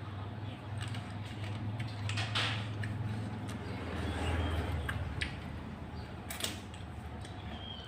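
Scattered clicks and knocks of eating at a table, over a steady low hum.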